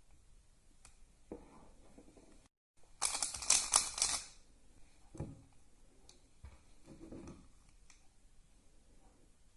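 Plastic speed cube (Yuxin Little Magic) being turned rapidly by hand: a dense, loud burst of clicking plastic turns about three seconds in, lasting about a second, with a few softer clicks and knocks of handling before and after.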